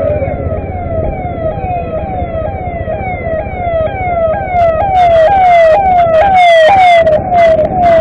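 Siren yelping: a fast, repeated falling wail, about three sweeps a second, growing louder about five seconds in, over the steady noise of road traffic and the motorcycle's ride.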